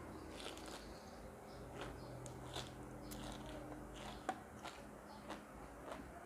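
Faint chewing, with soft crunches and clicks every second or so as crisp food is bitten, over a low steady hum.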